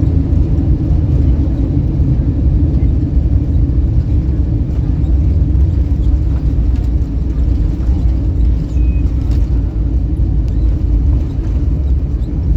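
Steady low rumble of an Airbus A321 airliner's engines and airflow, heard from inside the cabin.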